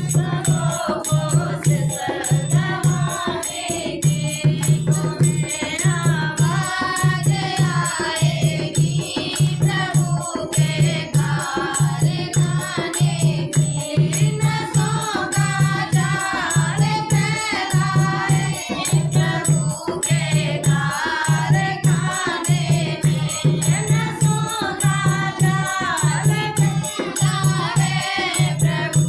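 Group singing of a Hindi devotional bhajan over percussion, with a steady low beat about once a second and a constant rattling, clicking layer on top.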